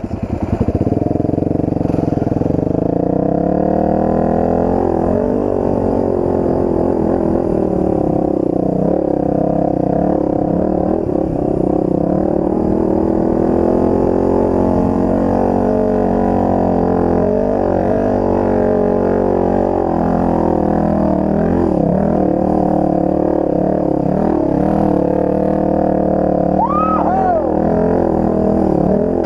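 Dirt bike engine pulling in first gear at low revs, a steady drone whose pitch rises and falls gently with the throttle as the bike works along a rutted trail.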